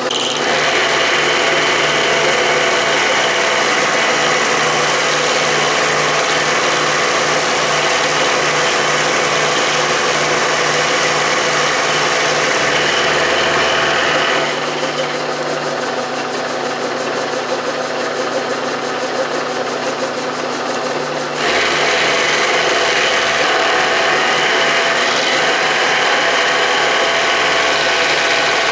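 Milling machine running with a roughing (hogging) end mill taking an aggressive cut in a steel workpiece: a steady machine hum under a loud, gritty cutting noise. About halfway through, the cutting noise eases for several seconds, then comes back.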